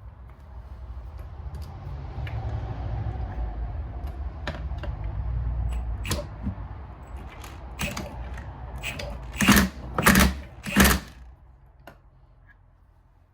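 Metal tools and engine parts handled on a workbench: a low rumble with scattered clicks, then three loud metal clanks in quick succession about two-thirds of the way in.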